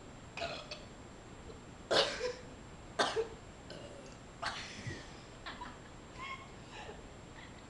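A string of short, sudden non-speech vocal bursts from people, about seven in all, the loudest two about two and three seconds in.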